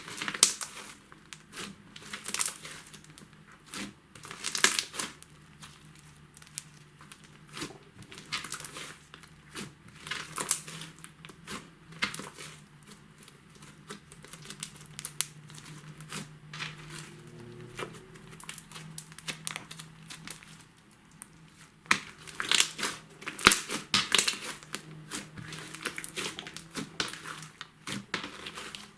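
White slime mixed with makeup and glitter being squeezed and worked by hand, crackling and popping in irregular clusters, with quieter stretches between.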